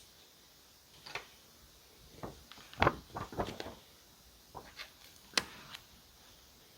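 Small taps, clicks and rustles of journaling supplies being handled and set down. There is a single tap about a second in, a cluster of taps and rustles in the middle, loudest near three seconds, and a few sharper clicks later on.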